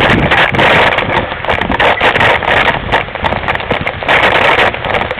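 Mountain bike rattling and clattering down a rough forest trail, a dense run of knocks and jolts over a steady rush of wind and tyre noise, picked up by a camera mounted on the bike. It eases slightly near the end.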